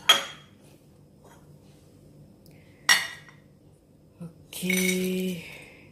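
Ceramic bowls clink sharply on the counter twice. Then crisp fried bitter gourd slices slide out of one bowl into another, with a scraping rattle of about a second near the end.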